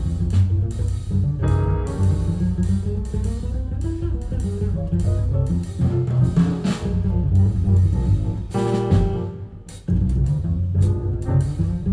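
Recorded music with a heavy bass line and sharp percussion, played through Avalon Acoustics hi-fi loudspeakers and heard in the listening room. The music thins out briefly near the end, then comes back in sharply.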